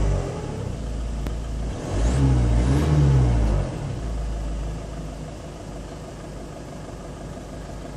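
Mazda 3's 2.0-litre RF four-cylinder diesel engine revved once about two seconds in, its pitch rising and falling back, then settling to a steady, quieter idle.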